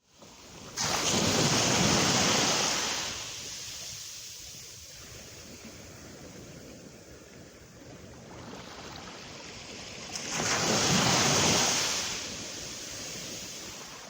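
Small waves breaking on the beach on a calm sea, twice, about nine seconds apart, each surging up and washing out over two seconds or so, with a low steady wash between.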